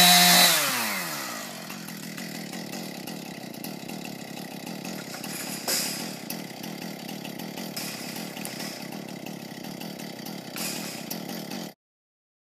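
Chainsaw engine revved high, then dropping in pitch over a second or two and settling into a steady, quieter idle. The sound cuts off suddenly near the end.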